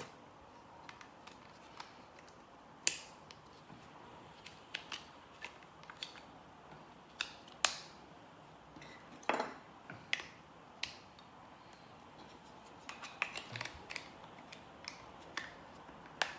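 Hti HT-175 thermal camera's plastic battery holder and AA cells being handled during a battery swap, with scattered sharp plastic clicks and knocks. A few of the clicks are louder, and a run of small ticks comes near the end as the holder is pushed back into the camera's grip.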